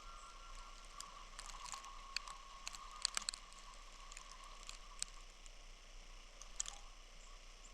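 Faint snowstorm ambience: a soft hiss with scattered sharp ticks, bunched together early on and then a few single ones. A faint steady high tone fades out a few seconds in.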